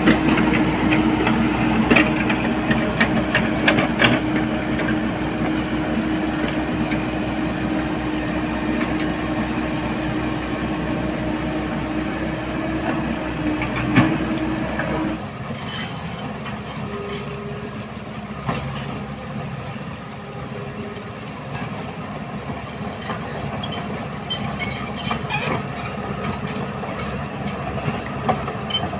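Diesel engine of heavy construction machinery running steadily, with scattered metallic knocks and clanks. About halfway through the sound changes abruptly: the engine drops away and intermittent high metal squeaks come in.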